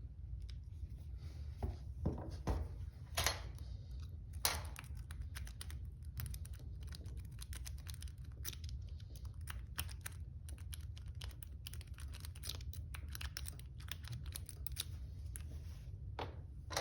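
Lock pick and tension wrench working in the keyway of a Master Lock 312D padlock: a continuous run of small metallic clicks and scratches as the pins are picked, with a few louder knocks in the first few seconds. A low steady hum lies under it.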